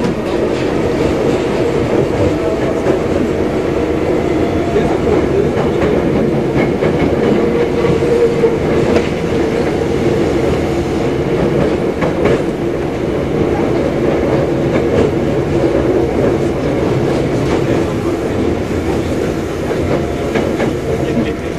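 Keikyu old 1000-series electric train running, heard from inside the car: a steady rumble of wheels on rail with clickety-clack from the rail joints and a faint steady motor hum.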